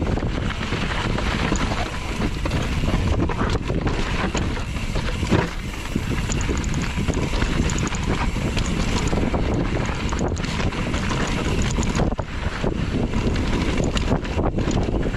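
Wind buffeting the microphone of a camera carried on a moving mountain bike, with scattered knocks and rattles from riding over rough trail.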